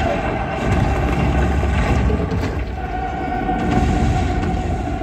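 Movie soundtrack of an action sequence playing through cinema speakers: a heavy, steady low rumble of destruction with a held musical tone over it.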